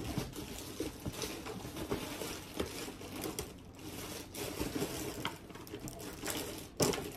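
Rummaging by hand through a storage bin of cookie-packaging supplies: irregular rustling of plastic bags with small knocks and clicks throughout.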